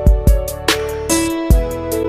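Instrumental break in a Portuguese-language romantic pop song, with no singing: a drum beat of deep kick hits and sharper snare or cymbal strikes under sustained chords.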